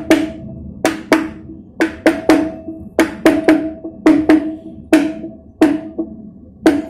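Mallet tapping rubber cush-drive buffers into a motorcycle's rear wheel hub: sharp knocks, often two in quick succession, repeating roughly every second with a short ringing tone after each.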